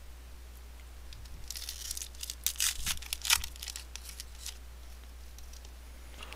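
A baseball card pack's foil wrapper being torn open and crinkled: a run of sharp crackles for about three seconds, starting about a second and a half in.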